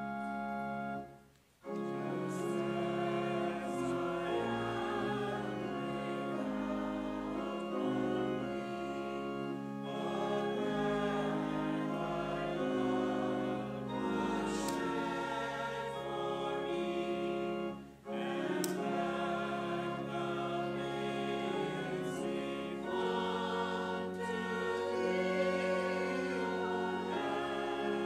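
A choir singing slow music in long held notes, with two short breaks, about a second and a half in and about eighteen seconds in.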